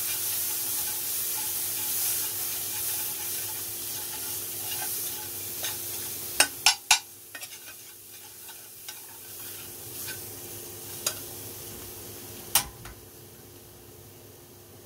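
Tikka masala paste sizzling in a metal frying pan on a gas burner while a metal spoon stirs and scrapes it. The sizzle gradually dies down as the heat is lowered. There are sharp clinks of metal on metal, three in quick succession about halfway through and two single ones later.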